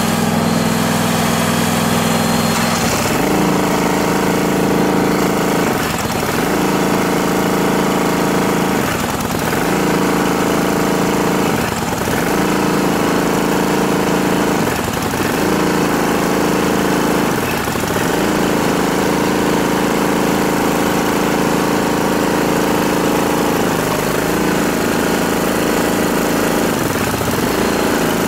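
Engine of the hydraulic CEB press's power unit running fast. It speeds up about three seconds in, then sags briefly and recovers roughly every three seconds as hydraulic load comes on and off.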